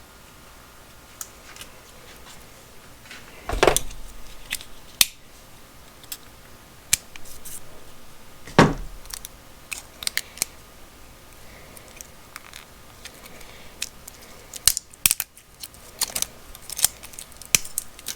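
Small objects handled at close range while opening a pack of AAA batteries for a digital kitchen scale: scattered clicks and taps of plastic and packaging, with two heavier knocks, one a few seconds in and one about halfway, and a quick run of clicks near the end.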